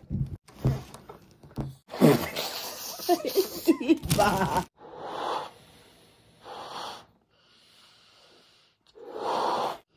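A person blowing up a balloon with three hard puffs of breath, after a stretch of indistinct talk.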